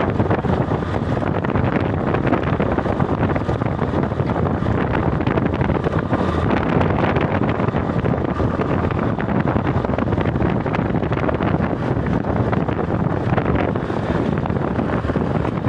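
Steady, loud wind buffeting the microphone, a dense low rumble with no clear rhythm.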